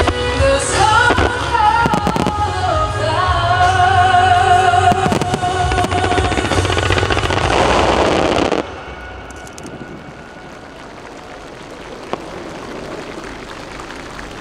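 Fireworks shells bursting over a song with a singing voice. The music and the loud burst noise cut off suddenly a little past halfway, leaving a much fainter steady hiss with one sharp pop a few seconds later.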